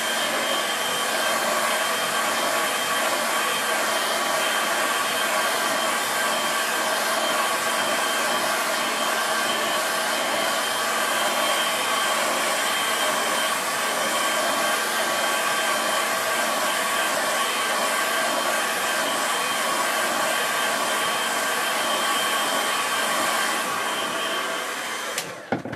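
Handheld Vidal Sassoon hair dryer running steadily with a constant whine, blowing on a wet watercolour painting to dry it; it switches off abruptly near the end.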